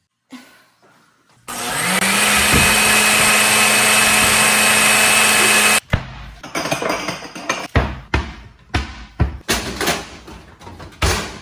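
A loud electric kitchen-appliance motor spins up and runs steadily for about four seconds, then cuts off suddenly. It is followed by a quick series of bangs and clatters from kitchen cabinet doors being slammed and pots and the stove being handled.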